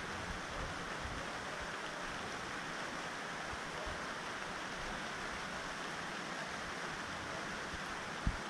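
Heavy rain falling in a steady hiss, with gusts of wind buffeting the microphone in low bumps now and then, the strongest just before the end.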